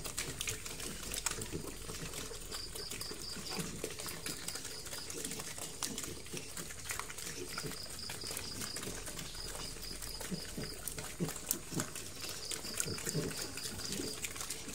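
A piglet eating dry feed pellets from a concrete trough: wet chewing, smacking and crunching with many small clicks. A high chirping, in short runs of rapid pulses, repeats in the background.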